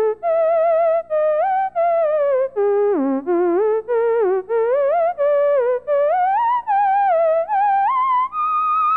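Theremin played solo: one wavering voice with vibrato, sliding and stepping between notes in short phrases, each cut off by a brief silence. The line dips low about three seconds in, then climbs to a higher held note near the end.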